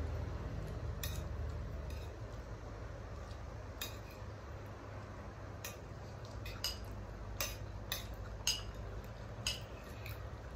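Metal spoons clinking and scraping on ceramic plates as two people eat, about ten scattered clinks over a low steady hum.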